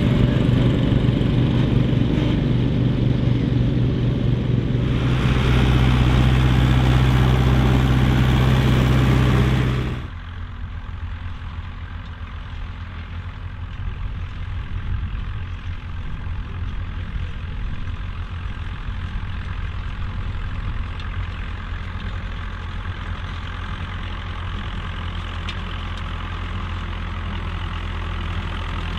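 A small garden-tractor engine running hard, growing louder about halfway through. After an abrupt cut, a vintage Massey Ferguson tractor's engine runs steadily and more quietly under load, pulling a disc harrow through tilled soil.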